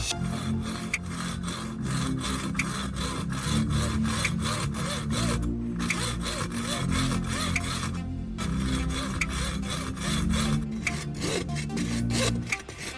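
Repeated strokes of a hand tool filing or rubbing on a workpiece, about three to four strokes a second, pausing briefly twice, over background music.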